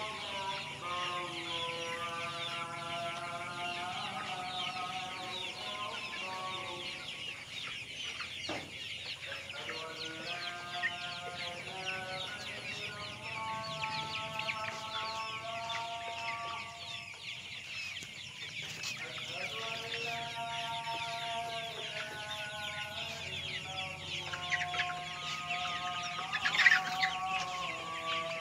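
A large flock of about two-month-old chickens cheeping and clucking together in a dense, constant chorus, with one louder squawk near the end.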